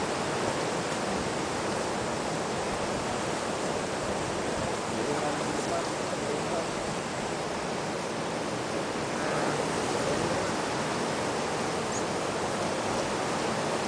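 Steady, even rushing noise, with faint voices in the background.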